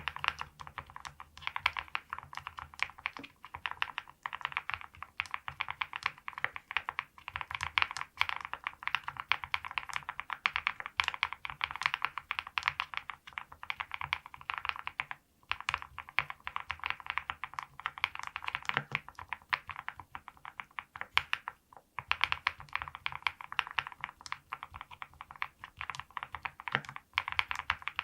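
Continuous typing on a VARO V75 Plus custom mechanical keyboard with lubed XY Studio Bsun X linear switches, a PC plate, full foam and PBT keycaps: a dense, fast stream of key clacks, broken by brief pauses about halfway and again about three quarters through.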